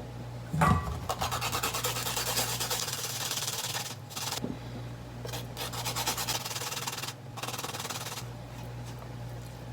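Garlic and ginger being grated on a grater: fast, even rasping strokes in runs, broken by short pauses about four and seven seconds in.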